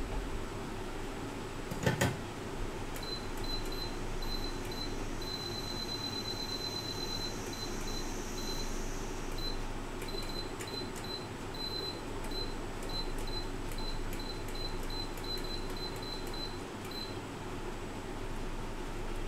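Steady fan-like hum of a repair bench, with a single sharp knock about two seconds in. A run of short, high-pitched electronic beeps starts soon after, briefly turns into one continuous tone, and stops a couple of seconds before the end.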